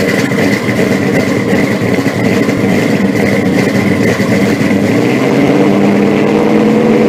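A car engine running steadily at a fast idle, with a thin steady whine above the engine note.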